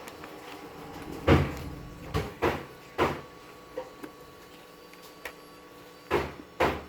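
Workbench clatter: a series of sharp clacks and knocks as tools and parts are handled and set down, about six loud ones and a few lighter ticks, irregularly spaced, over a faint steady hum.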